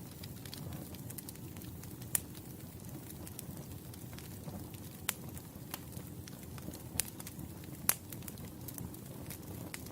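Campfire burning: a steady low rumble of flames with scattered small crackles and four sharper pops, the loudest about eight seconds in.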